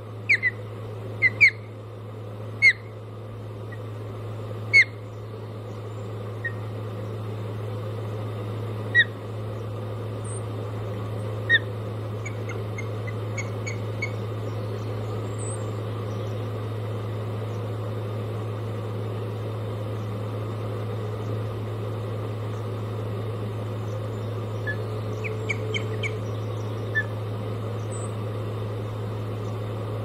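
Osprey calling: sharp, high whistled chirps, several in the first dozen seconds and a few fainter ones later. Beneath them runs a steady low hum that grows louder over the first few seconds.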